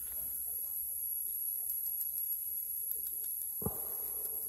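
Steady high-pitched hiss of compressed air leaking from an airbrush compressor that has developed a leak. About three and a half seconds in, a click is followed by a louder, lower steady rushing noise.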